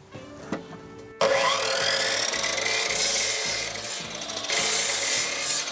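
Electric miter saw starting up about a second in, its motor whining up to speed, then the spinning blade cutting through a wooden board. The sound dips briefly and comes back loud near the end as the cut goes on.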